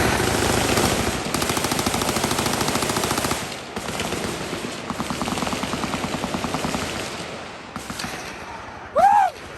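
Many machine guns firing on full auto at once, a dense, continuous rattle of shots. It is loudest for the first three seconds, then thins out and dies away at about eight seconds. Just before the end a short, rising-and-falling whoop is heard.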